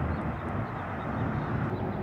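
Steady low rumble of vehicles: traffic on the road below and a distant approaching train, with no single sound standing out.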